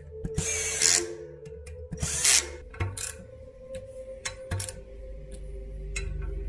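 Bicycle-workshop tool noise: two short hissing bursts, one just after the start and one about two seconds in, with scattered sharp clicks, over steady background music.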